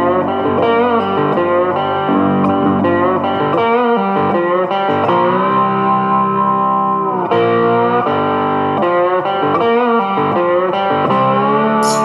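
Background music led by an electric guitar playing bending, gliding notes, with a long held note about halfway through.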